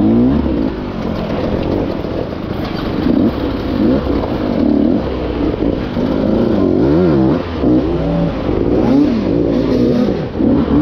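Dirt bike engine revving up and down in repeated quick blips as the bike picks its way up a rocky boulder climb.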